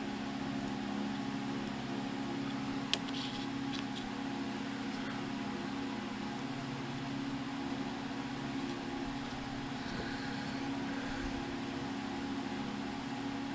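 Steady machine hum with several fixed tones, with a single light click about three seconds in.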